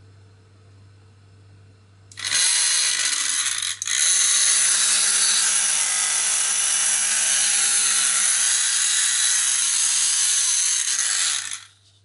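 Small handheld rotary tool fitted with a 44 mm high-speed steel saw blade, switched on about two seconds in and spinning up with a rising whine. It runs steadily at high speed, falters for a moment just before four seconds, then is switched off and spins down near the end.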